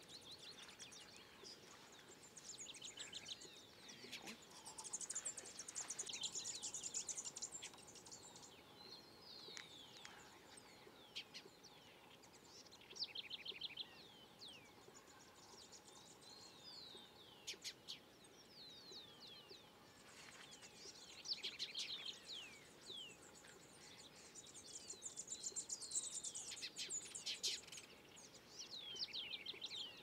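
Small songbirds singing in repeated bursts: high, rapid trills and quick falling notes, phrase after phrase.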